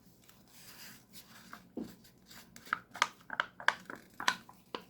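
A soft rustle, then a quick, uneven run of light clicks and taps in the second half, from small craft items and tools being handled on a work surface.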